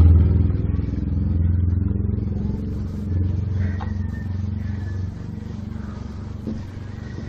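A motor vehicle's engine passing close by, loud at first and fading away over the next few seconds.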